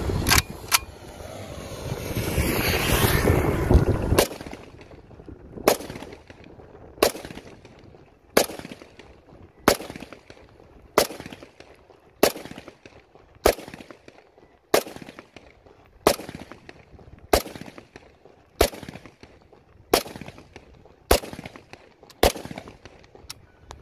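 A 44 bore semi-automatic rifle in Saiga style fired single shot after single shot, a sharp crack with a short echo roughly every second and a quarter. Two quick shots open it, then a few seconds of rumbling noise before the steady string of shots.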